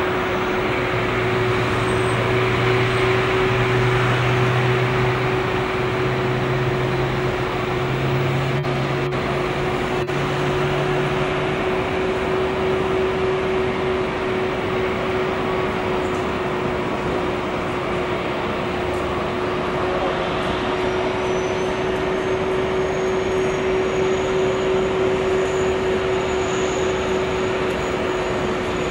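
Airbus A380-800 jet engines running at taxi idle as the airliner rolls past: a steady rushing whine with a constant mid-pitched tone, a low hum through the first ten seconds or so, and a faint high whistle rising in pitch from about two-thirds of the way in.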